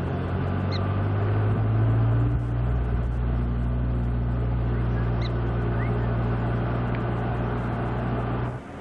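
A vehicle's engine running steadily in a low hum, cutting off suddenly near the end. A few short, high chirps come over it.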